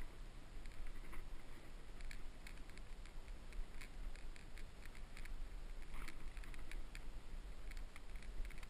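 Soft, irregular clicks and rustling from a bowhunter's gear as he moves slowly over tundra holding a cloth stalker decoy and a compound bow, over a low steady rumble.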